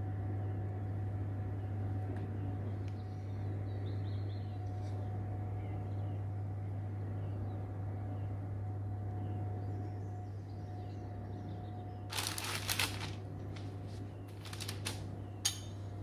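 Steady low hum with a faint high tone and a few faint chirps. About twelve seconds in there is a short rustle, then several sharp clicks and knocks of kitchen things being handled.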